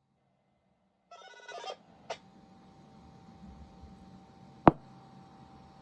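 A two-way radio sends a short burst of keypad signalling tones (DTMF-type beeps) about a second in to command the siren controller. A click follows, and a sharper click comes near the end, over faint hiss and a low hum.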